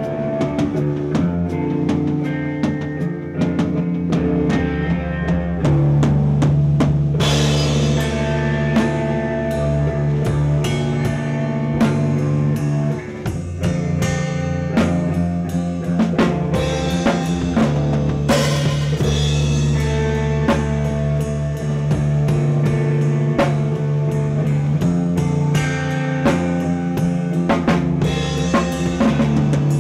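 Live band playing an instrumental passage: a drum kit with bass drum and snare hits over held guitar and bass chords. Cymbals come in about seven seconds in and again around eighteen seconds.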